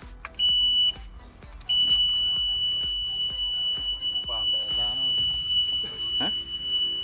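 Boat engine's warning alarm buzzer: a short high beep, then about a second later one long steady beep held for around six seconds. The crew read the alarm as a sign that the fuel pump is not running.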